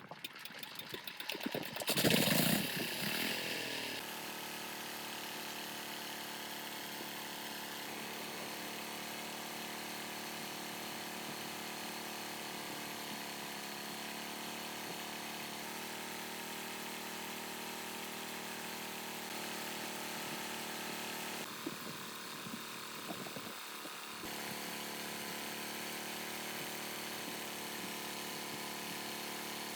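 Generator engine running at a steady speed after a louder burst about two seconds in.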